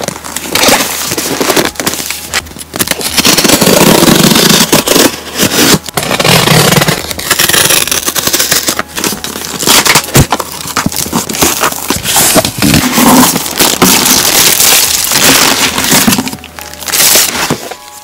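Cardboard shipping box being opened by hand, loud and close: packing tape slit with a box cutter, then cardboard and plastic wrap crackling and rustling with many sharp clicks as the wrapped box inside is handled.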